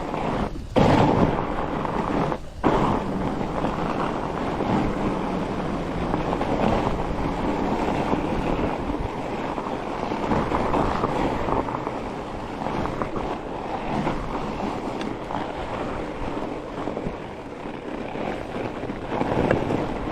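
Fat bike tyres rolling and crunching over firm, frozen groomed snow, with wind rushing over the microphone. The sound is a steady, dense noise that drops out briefly twice near the start.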